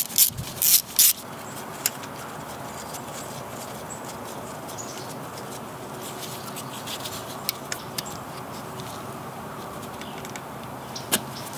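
A ratchet wrench clicks several times in quick succession on the 8 mm nuts of the glow-plug bus bars. After about a second it gives way to a steady faint hiss with a few light metallic clicks now and then as the loosened nuts are handled.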